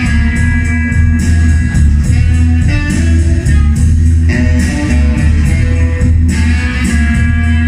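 Loud guitar-led music with bass and a steady drum beat, played back through a club PA system.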